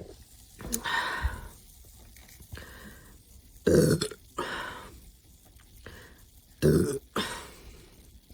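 A woman burping several times: a smaller burp about a second in, then two loud belches, one near four seconds and one near seven, each followed by a short, higher-pitched sound.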